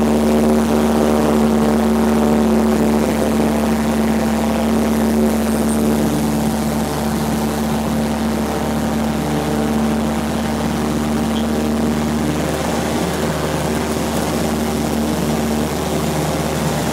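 Propeller airplane's piston engine running steadily at high power during a takeoff, with a steady stack of engine and propeller tones.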